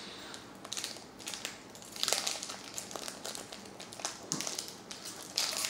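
Foil Pokémon trading-card booster pack wrapper crinkling in irregular bursts as it is torn open and handled.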